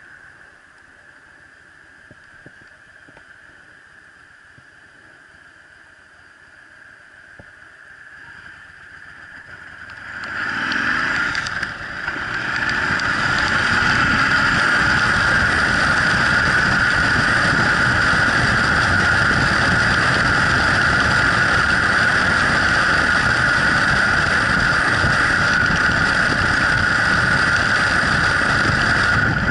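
Yamaha Drag Star 1100's V-twin engine running quietly at low speed, then about ten seconds in it opens up as the bike accelerates away, and from there the engine and the rush of wind at road speed stay loud and steady.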